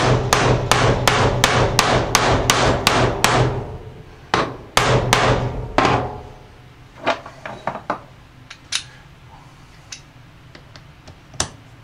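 Ball-peen hammer striking a new wheel bearing into a Polaris Outlaw's aluminium rear carrier hub: quick blows about four a second for the first few seconds, then a few slower ones. After that come only light clicks and clinks as the tools are handled.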